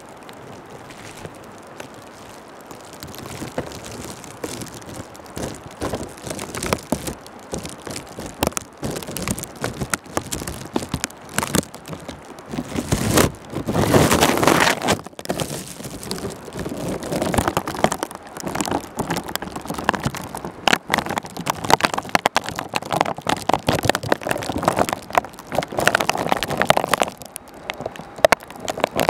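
Snowstorm wind gusting, with a dense crackling patter, likely precipitation striking the camera. It swells loudest about halfway through and stays strong for much of the second half.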